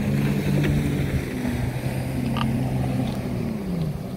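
Watercraft engine running at speed under way, a steady motor note over rushing water and wind. The note drops near the end as the throttle eases.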